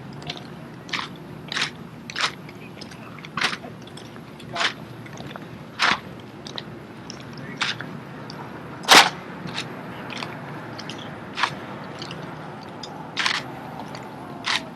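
Drill rifles being handled in exhibition drill: about a dozen sharp, irregular clacks of hands catching and slapping the rifles, the loudest about nine seconds in.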